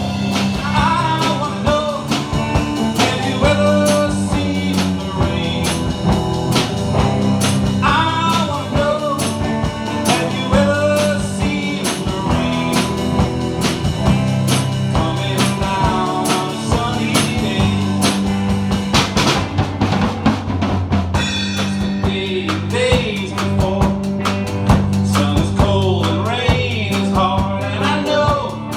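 Music: a song with a drum kit, a steady beat, bass and a singing voice.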